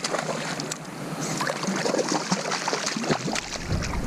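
Water splashing and slapping beside a kayak as a hooked smallmouth bass is brought alongside the boat, with short sharp clicks and crackles throughout. Wind rumble comes in near the end.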